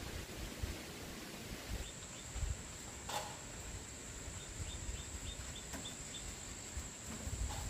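Rural outdoor ambience: wind rumbles on the microphone under a steady high whine. A single knock comes about three seconds in, and a quick run of about seven short, high chirps follows around the middle.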